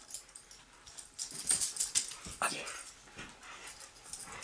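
A French Brittany dog giving a short whine that slides downward in pitch about two and a half seconds in, among quick scratchy clicks and rustles.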